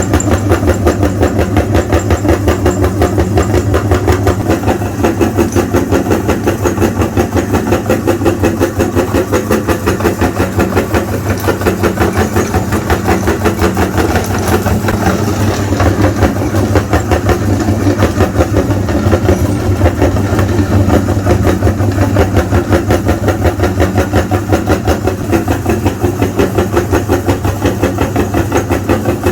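Electric meat grinder running steadily as it grinds sticks of chalk, with a fast, even pulsing.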